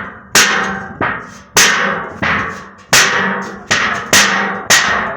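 Thin stainless-steel sink struck over and over, about eight hits roughly every half second, each ringing out like a drum with a metallic ring: the thin sheet booms and resonates.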